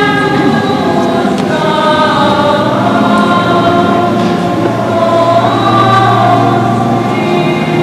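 Choir singing sacred music, with long held notes that move slowly from pitch to pitch.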